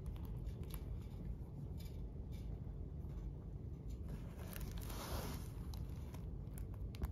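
Faint rustling and light handling noises from a diamond painting canvas being moved and touched, with scattered small clicks and a soft scrape about five seconds in, over a low steady room hum.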